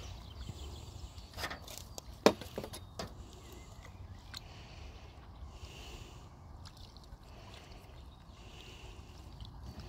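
Gentle water sloshing and trickling as a large fish is eased out of a landing net into shallow pond water. A few sharp knocks come in the first three seconds, over a steady low rumble.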